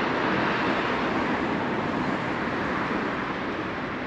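Steady rushing noise of a passing vehicle, slowly fading.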